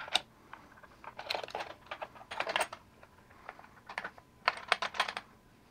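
Handling clicks and taps as a small clamp-style material hold-down and a plywood scrap are shifted and repositioned against a miter gauge fence, in about five short clusters.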